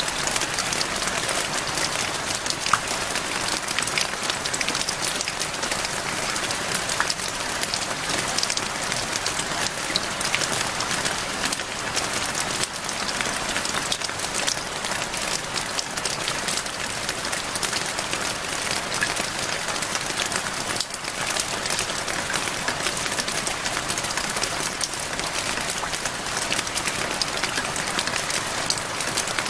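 Steady rain falling on a hard surface, a constant hiss dotted with the ticks of single drops.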